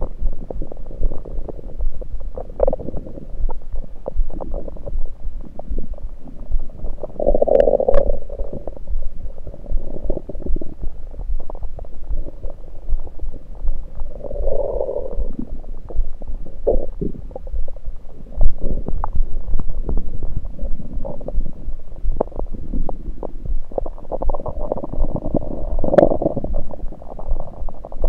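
Stomach gurgles picked up through an electronic stethoscope on the belly: irregular bubbling and rumbling, with louder gurgles about 8, 15 and 25 seconds in and small crackles between. The uploader puts them down to liquids in the stomach rather than digestion.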